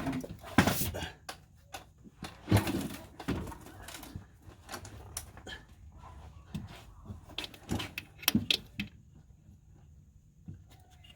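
Irregular clanks and knocks of a breaker bar and tools against the engine as the bar is worked onto the serpentine belt tensioner to slacken the belt, with quieter handling noise in between.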